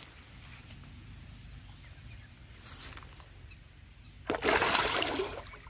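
Hooked rohu splashing and thrashing in shallow water as it is hauled by hand line to the bank, with a short splash around three seconds in and a louder splash lasting about a second near the end. A steady low wind rumble on the microphone underneath.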